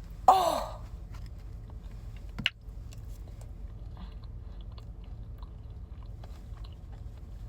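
Close-up chewing of cake, with small mouth clicks throughout. A short spoken "oh" comes near the start, and a sharp click about two and a half seconds in.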